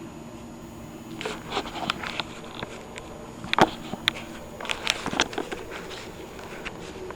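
Mr. Coffee espresso machine humming steadily while it heats up to brew, with a run of sharp clicks and knocks through the middle, the loudest about three and a half seconds in, from items being handled on the counter.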